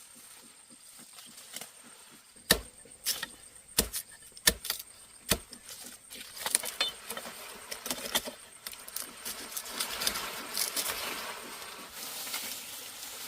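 Sugarcane being cut by hand: about five sharp chops over three seconds, then dry crackling and rustling of cane stalks and leaves being handled.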